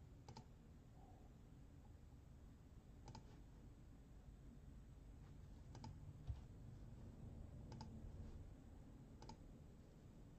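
Near silence with five faint, sharp clicks spaced a couple of seconds apart.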